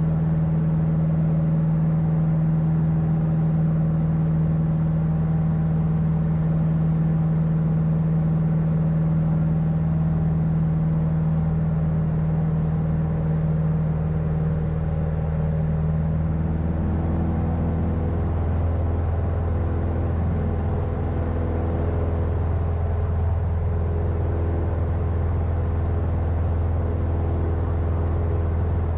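Cessna 150's four-cylinder Continental O-200 engine and propeller droning steadily in flight, heard from inside the cockpit. A little over halfway through, the engine note shifts and deepens as the plane slows in a steep turn.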